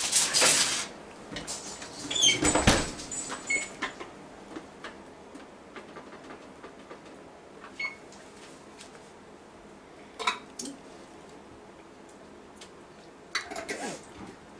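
A foil-covered pan rustling and scraping as it slides onto an oven rack, then the oven door shut with a thump about two and a half seconds in. Scattered small clicks and knocks of kitchen work follow.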